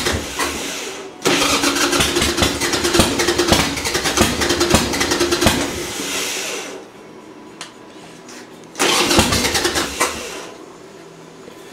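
Harley-Davidson Sportster V-twin being cranked on its electric starter with the choke on. It turns over without catching: a brief crank that stops about a second in, a long crank of about five seconds, then after a pause a shorter one of about two seconds. The owner takes the engine to be flooded, with fouled plugs.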